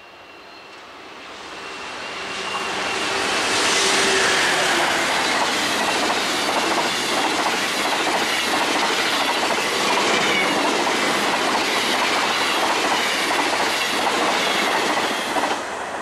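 Venice Simplon-Orient-Express coaches, hauled by a Trenitalia E402B electric locomotive, passing along the track. The sound swells over the first few seconds as the train comes near, then holds steady as a run of wheel clatter over the rail joints as the coaches go by.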